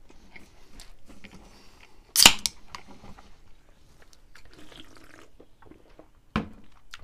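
A drink can being picked up, drunk from and put back down on a desk. There is a sharp click about two seconds in, quiet handling and mouth noises, then a knock near the end as the can meets the desk.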